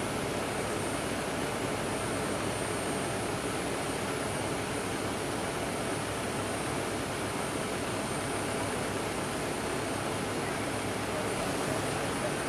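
Steady roar of aircraft jet engines running on the apron, with a faint high whine held throughout.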